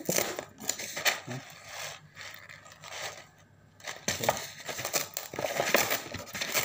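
Plastic food packaging crinkling and rustling as it is unwrapped by hand, with a short lull about three seconds in before the crinkling grows louder again.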